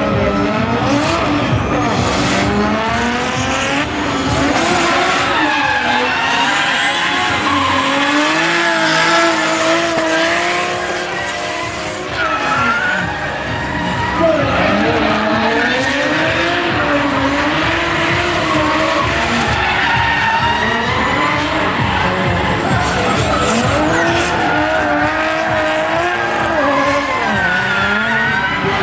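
Two drift cars, a Nissan R33 Skyline and an RB25 straight-six Nissan S13, revving hard in a tandem drift. Their engine notes rise and fall over continuous tyre squeal, with a brief dip about twelve seconds in.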